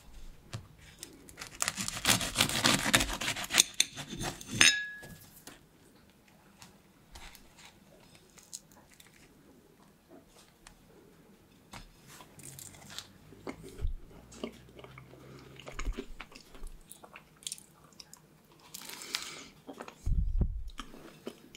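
A cream puff's crisp choux pastry shell being pulled apart by hand: a dense run of crackling and crunching for about three seconds, then scattered softer crackles. A dull thump near the end.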